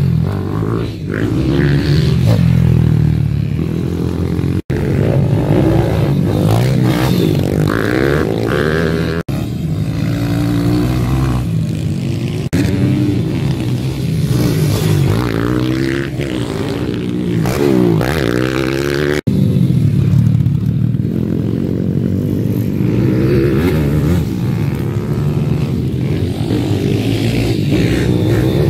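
Single-cylinder four-stroke pit bike engines revving up and falling back again and again as the bikes ride a dirt track, the pitch rising and dropping with throttle and gear changes. The sound breaks off abruptly three times where clips are joined.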